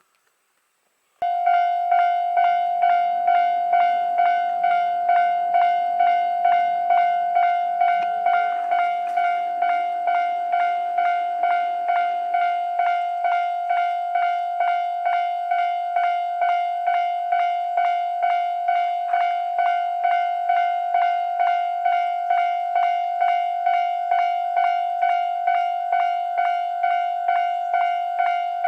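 Railway level-crossing warning alarm starting about a second in, then ringing a steady pitched tone at about two strikes a second. It is warning that a train is approaching the crossing.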